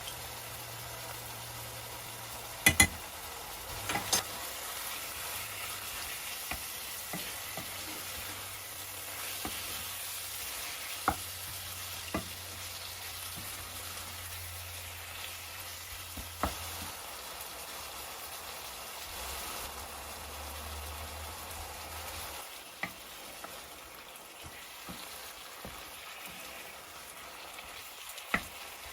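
Food sizzling as it fries in a pan: a steady hiss broken by a few sharp clicks and knocks, the loudest two a few seconds in. The sizzle drops a little about three-quarters of the way through.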